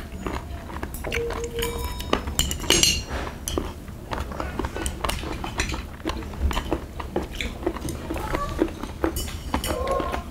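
Metal chopsticks and spoons clicking and tapping against brass bowls and plates during a meal, in scattered irregular clinks, a few of which ring briefly.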